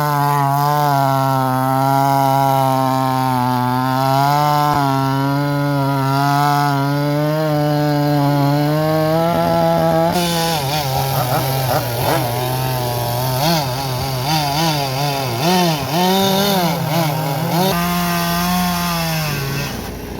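Chainsaw running at high revs, holding a steady pitch for about ten seconds, then its pitch dipping and recovering again and again as it cuts through the fallen tree's wood, before settling steady again near the end.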